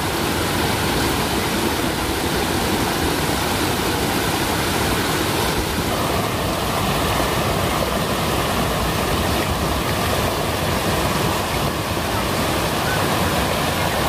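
Waterfall water pouring and flowing in a steady, loud rush of noise that brightens slightly about six seconds in.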